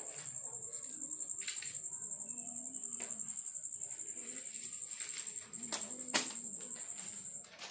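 A steady, high-pitched insect trill, pulsing rapidly and breaking off briefly about five and a half seconds in. A few sharp clicks or knocks sound over it, the loudest about six seconds in.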